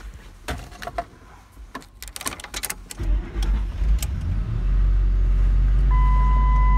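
Keys and switch clicks, then the 2004 Ford Expedition's 4.6 V8 starts about three seconds in and settles into a steady idle: the ignition switch, whose kinked wiring had left it with no crank and just a click, now works. A short electronic chime sounds near the end.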